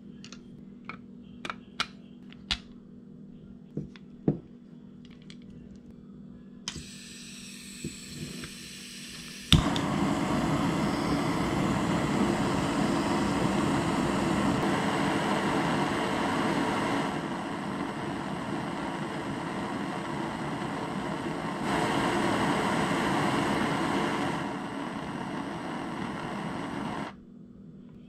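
Butane torch head (S.W.D 202) on a butane canister: a few sharp clicks as the canister is fitted, a hiss of gas from about seven seconds in, then a sharp click near ten seconds and the lit torch burning with a loud, steady rushing noise. The flame noise steps quieter and louder a couple of times and cuts off about a second before the end.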